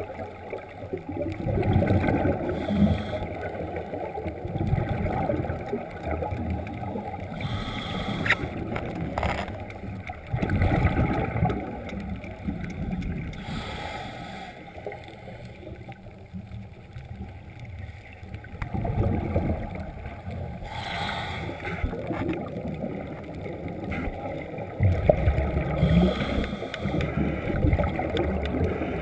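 Scuba diver's regulator breathing heard underwater through a camera housing: bubbly bursts of exhaled air about every five to six seconds over a low, muffled rumble.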